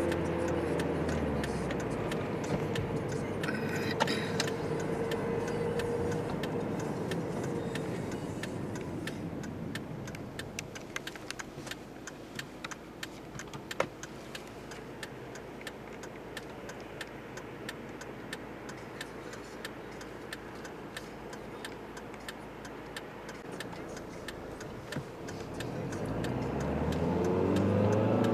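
A car heard from inside the cabin. The engine note drops as the car slows at the start, then a turn-signal relay ticks steadily over road noise through the middle, and the engine note rises near the end as the car accelerates.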